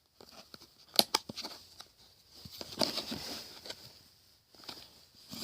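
Hardened, dried-out slime being poked and handled: a couple of sharp clicks about a second in, then a stretch of soft crackling and rustling.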